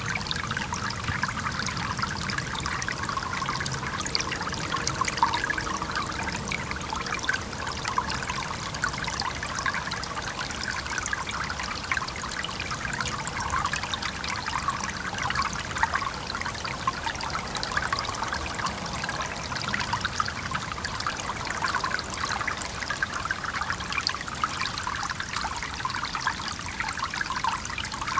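A small stream trickling and babbling over rocks, a steady dense patter of small splashes without pause.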